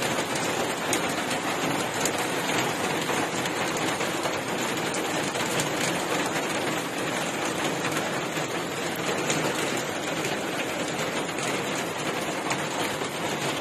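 Heavy rain falling steadily: a dense, even hiss of drops on surfaces that keeps on without letting up.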